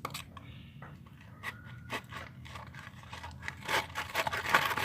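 Glue-and-detergent slime being stirred in a bowl with a spoon: scattered wet scrapes and clicks, then denser, louder scraping and crackling from about three and a half seconds in.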